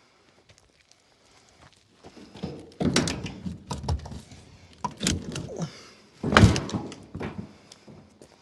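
Timber from a wooden shipping crate being handled: a run of knocks and thuds that begins about two seconds in, with the loudest thud near the end.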